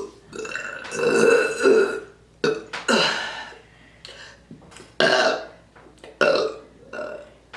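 A person burping loudly on command, a run of about five burps. The first is the longest, at over a second; the rest are shorter.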